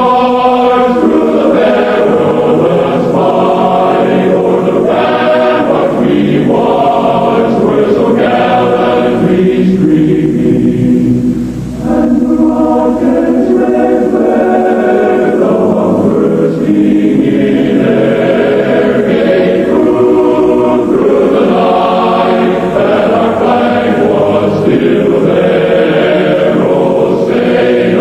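A choir singing the national anthem in long, held notes, played as the last sign-off at the end of broadcasting. The sound dips briefly about halfway through.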